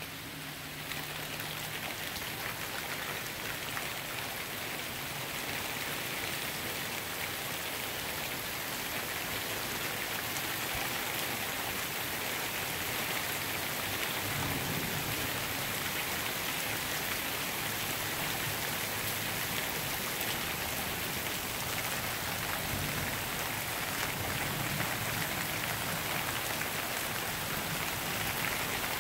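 Steady thunderstorm downpour hissing on wet pavement, lawns and a parked car. It grows a little louder over the first few seconds, then holds even.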